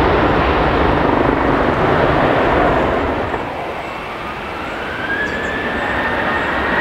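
Jet engine noise of a Boeing 737 climbing out after takeoff, which dies away about three seconds in. Then a Boeing 737-800's CFM56 engines spool up for the takeoff roll: a whine that rises in pitch and then holds steady over a low rumble.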